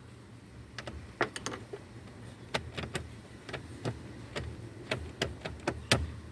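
Scattered light clicks and taps as a hand tool backs a Torx screw out of a car's plastic lower steering-column cover, irregular rather than a steady ratchet rhythm.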